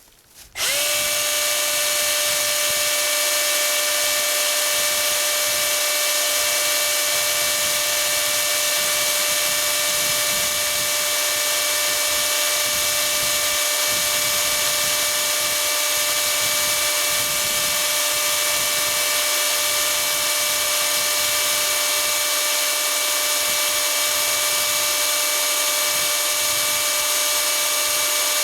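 Milwaukee electric chainsaw switched on about half a second in and left running at a steady, unchanging speed with no cutting. This is the run-in that Milwaukee recommends before cutting, to lubricate the bar and chain.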